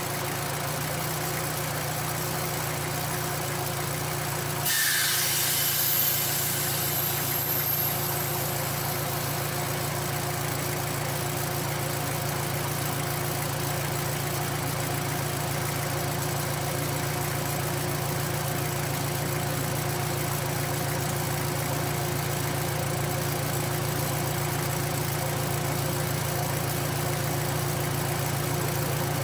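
A miniature railway locomotive's engine running steadily, with an even hum throughout. A brief burst of hiss comes about five seconds in and fades over the next few seconds.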